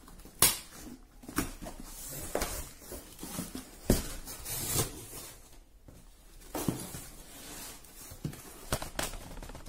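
A cardboard shipping box being opened by hand: a screwdriver scrapes through packing tape and the cardboard flaps rustle, crackle and knock as they are pulled back, with several sharp knocks, the loudest about half a second in and near four seconds in.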